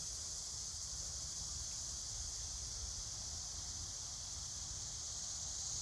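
Steady high-pitched chorus of insects such as crickets, with a faint low rumble underneath.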